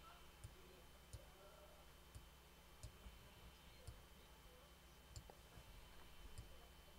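Several faint, irregular clicks of a computer mouse and keyboard in use, over near-silent room tone.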